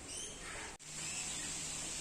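Steady outdoor background hiss with a faint bird call near the start, broken by a brief dropout just under a second in, after which a low steady hum sits under the hiss.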